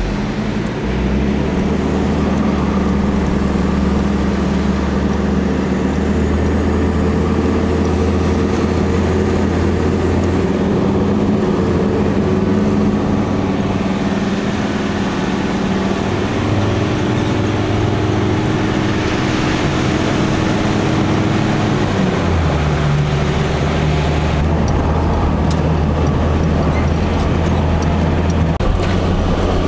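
A Ford four-wheel drive's engine and tyres heard from inside the cabin while driving along beach sand. The engine note is steady and drops in pitch about twenty-two seconds in.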